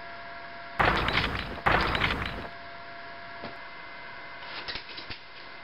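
Two loud crashing sound effects about a second apart, each dying away over about half a second, followed by a few faint clicks.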